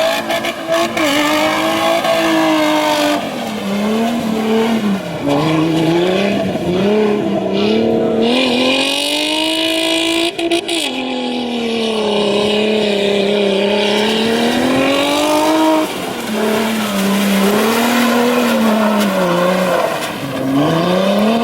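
Off-road 4x4's engine revving hard and continuously, its pitch climbing and falling every few seconds as the throttle is worked, with a sharp drop about halfway through.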